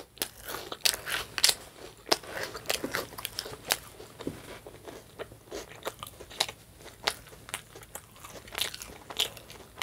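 Close-up mouth sounds of someone chewing food, with many small irregular crunches and wet clicks.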